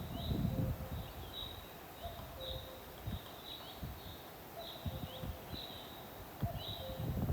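A bird repeating a short high chirp, about once or twice a second, over scattered low knocks and rustles.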